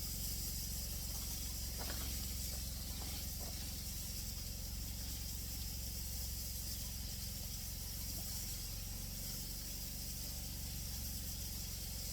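Deer backstrap sizzling steadily in a frying pan, an even hiss with a couple of faint ticks.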